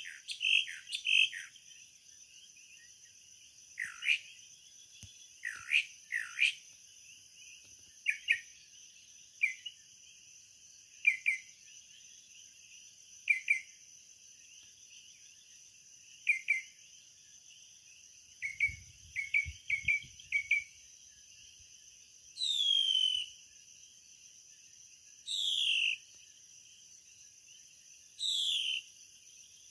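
A bird singing in the dark, repeating short whistled notes every second or two, and near the end three longer notes that slide down in pitch, about three seconds apart. Underneath runs the steady high drone of a night insect chorus.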